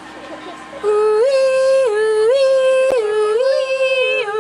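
A voice imitating a two-tone ambulance siren: a nee-naw that starts about a second in and swaps between a lower and a higher pitch about once a second.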